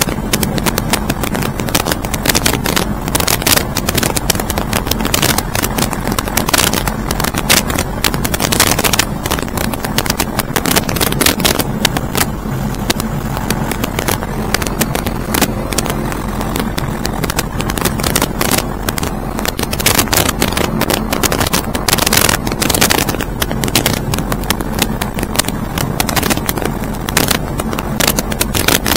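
Steady drone of an aircraft's engine in flight, with a low hum under it and frequent crackling bumps from wind buffeting the microphone.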